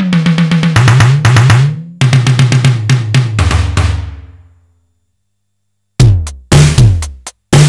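Simmons SDS7 hybrid analog/digital drum module playing fast electronic drum patterns, the hits carrying the typical downward pitch-bend sweep of Simmons toms, with a short reverb. The first pattern fades out, and after a second of silence a new kit starts with heavier hits whose sweeps fall lower.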